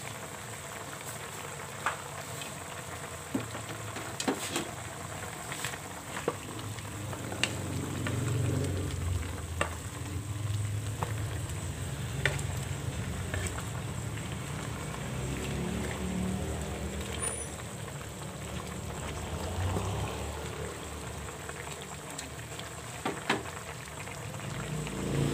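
Chicken adobo with potatoes simmering and bubbling in a wide pan, with scattered sharp clicks of a utensil against the pan as it is stirred.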